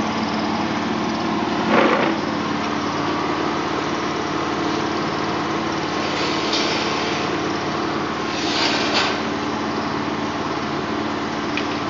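Air compressor running with a steady pitched drone, supplying air to a cable-blowing rig at about 13 bar. Short bursts of hiss come through about two seconds in, around six and a half seconds, and near nine seconds.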